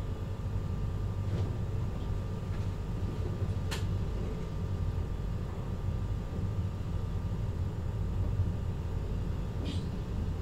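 Steady low rumble inside the driving cab of a VIRM double-deck electric multiple-unit train, with a few faint clicks, one sharp click about four seconds in, and a brief high hiss near the end.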